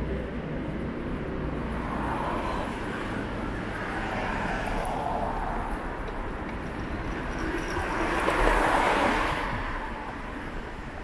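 Street traffic: vehicles passing one after another, the loudest pass about eight to nine seconds in.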